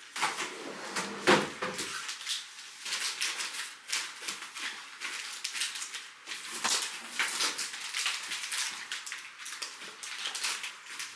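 Close kitchen handling noises: plastic packaging crinkling and rustling, with many small clicks and light knocks. The noise is a little louder in a few spots, the loudest about a second in.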